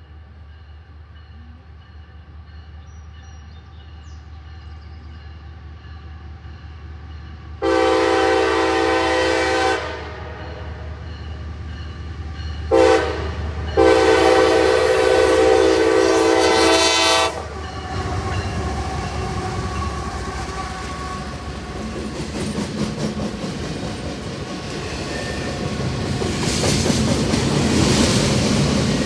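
Diesel freight locomotive's air horn sounding a long blast, a short one and another long one at a grade crossing. The double-stack freight train then rolls past with a steady rumble that grows louder toward the end.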